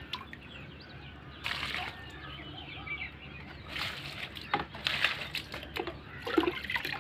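Water poured onto potted plants and soil, splashing in about three spells with quieter gaps between.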